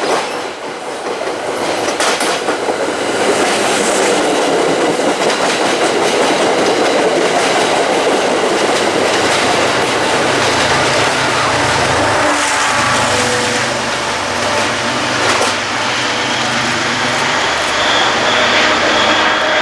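Steel wheels of a commuter train rolling steadily on the rails as the coaches pass directly underneath, with a clickety-clack of wheels over rail joints. Partway through, the low rumble of a diesel locomotive comes in as it goes by.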